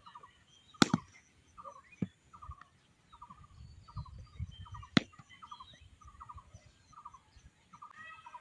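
A bird calling over and over, each call a short quick trill, about one and a half calls a second. Two sharp knocks, the loudest sounds, come about a second in and about five seconds in.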